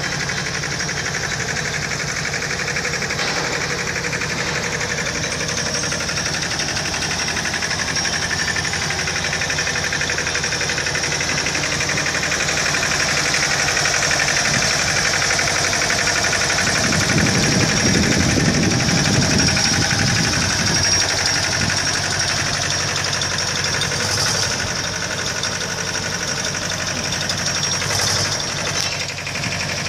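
Wagon drill rig running steadily: a diesel engine with a constant high hiss over it. The engine gets louder for a few seconds just past the middle, and two short clanks come near the end.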